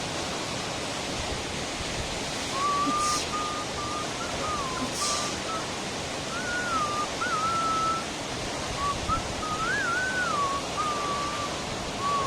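Steady rushing roar of a waterfall. About two and a half seconds in, a person starts whistling a wavering, sliding tune over it, which goes on to the end.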